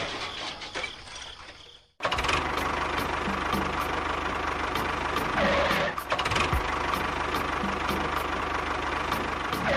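Small motor running steadily, with a regular ticking about three times a second. It starts abruptly about two seconds in, after a fading sound.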